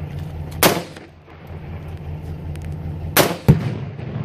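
Two rifle shots about two and a half seconds apart. The second hits a Tannerite binary exploding target, which goes off a fraction of a second later with a louder, deeper boom.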